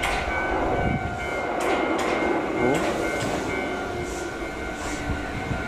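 Shizuoka Railway electric train pulling into the platform and slowing, with a steady high-pitched squeal over the running rumble and a few sharp clacks from the wheels.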